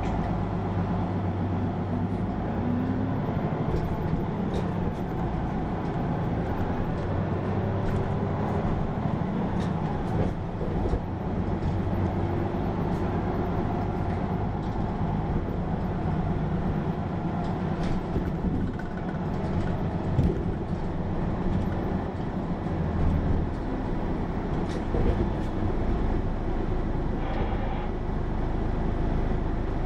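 Cabin sound of a Hino PA-KR234J1 diesel city bus under way: a steady low engine drone with road noise, the engine note rising in places as it pulls away, and light rattles and clicks from the body.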